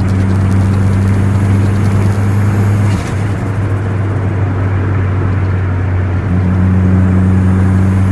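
Turbocharged Perodua Myvi 1.3 four-cylinder engine running steadily at light throttle while driving, with road noise under it. It briefly breaks off about three seconds in, then holds steady again.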